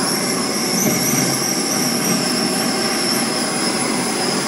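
Gas torch flame hissing steadily while heating an aluminium pipe joint for low-temperature aluminium brazing, with a thin high whistle running through the hiss.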